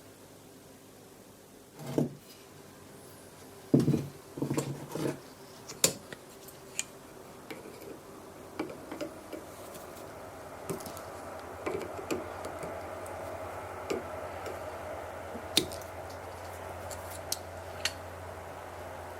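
Metal parts and tools being handled during disassembly of a WW1 British No. 80 fuze: scattered clinks, taps and knocks on a hard surface, the loudest a few seconds in. A faint steady hum builds up beneath from about halfway.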